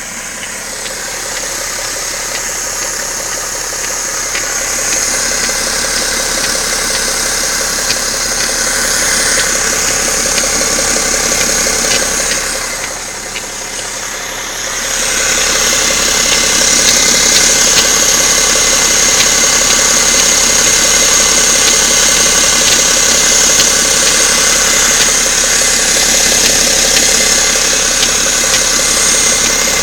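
BMW 530xd's straight-six diesel engine running steadily with a knocking noise that the owner records as a fault. It dips briefly near the middle and is louder from about halfway on.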